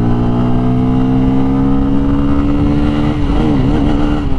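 Single-cylinder sport motorcycle engine under hard acceleration from a launch, its note climbing steadily through the revs for about three seconds before wavering near the end.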